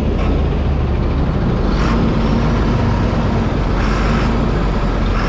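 Vespa S125 scooter's single-cylinder four-stroke engine running steadily on the move, under a heavy low rumble of wind on the helmet camera's microphone, with two brief swells of hiss about two and four seconds in.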